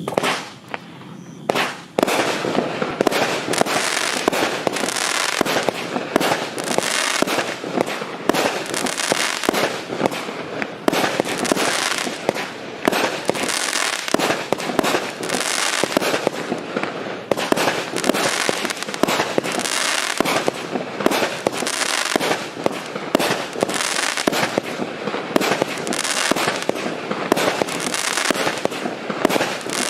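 GAOO REZYDENT 20–30 mm multi-calibre fireworks cake firing: one sharp shot at the very start, then from about two seconds in a rapid, unbroken run of launch thumps and bursts with crackle, swelling louder about every two seconds.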